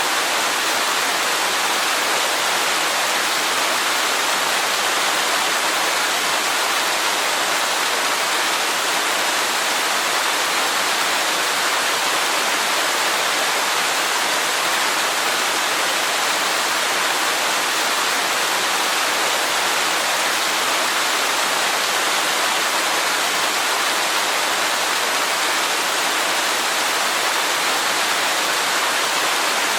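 Waterfall rushing steadily, an even, unbroken hiss of falling water with little deep rumble underneath.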